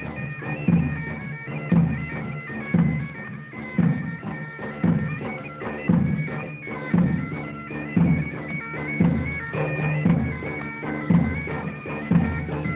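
Bagpipes playing a melody over their steady drones, with a low beat about once a second.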